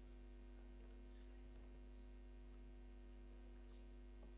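Near silence: room tone with a steady low electrical hum.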